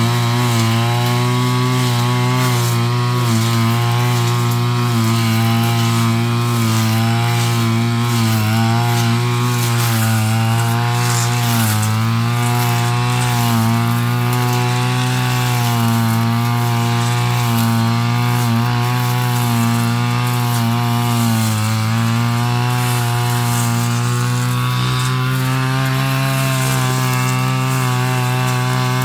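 Backpack brush cutter's small petrol engine running at high speed while its blade cuts thick grass. The pitch wavers slightly and dips briefly a few times as the cutter meets the growth.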